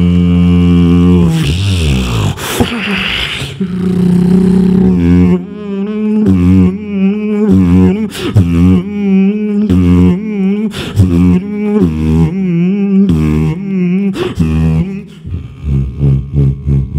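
Human beatboxing into a handheld microphone. It opens with a held low bass tone that slides down and a sweeping hiss, then breaks into a fast rhythm of wavering bass notes cut by sharp click and snare sounds.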